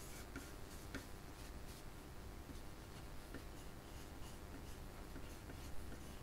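Faint scratching of a pencil on paper, with a few small ticks, over a low room hum.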